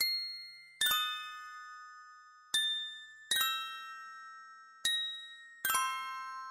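Background music: a slow tune of single bell-like mallet notes, glockenspiel-like, struck about once a second and each left to ring and fade.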